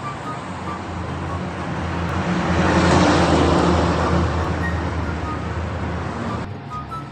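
A loud rushing noise that swells to a peak about three seconds in, then fades and cuts off suddenly near the end, under light background music.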